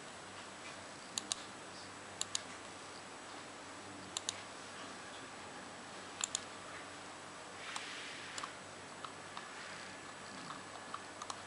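Computer mouse buttons clicking, mostly in quick double-clicks, five times over a faint steady hiss, with a brief rustle about two thirds of the way through.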